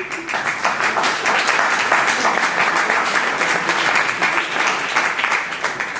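Audience applauding: dense, sustained hand-clapping from many people, fading out near the end.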